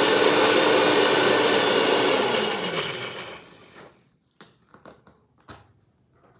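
Electric mixer grinder (mixie) running loud with a small steel jar of dry masala (garlic, green and red chillies, coriander and cumin) for about two seconds, then switched off, its motor whining down over the next second. A few light clicks follow. The paste has gone too thick and needs water added.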